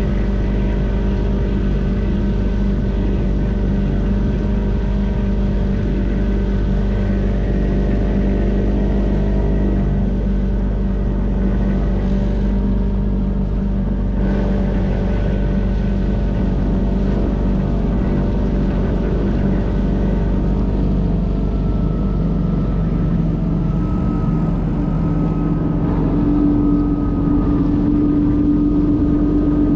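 Small boat outboard motor running steadily under way. Its note shifts higher and a little louder near the end.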